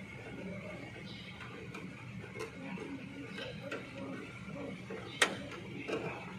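Small plastic clicks and taps from a hand working the control board of a FANUC power supply module, with one sharp click about five seconds in. A steady faint high whine runs behind.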